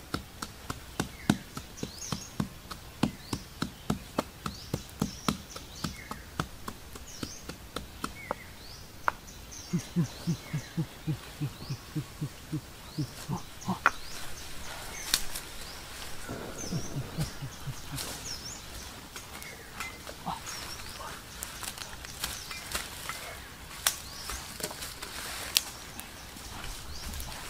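An axe brought down again and again on herbs on the ground, a steady run of knocks about two to three a second that stops about halfway through; after it comes leaf rustling and irregular handling noise, with high chirps of small birds now and then.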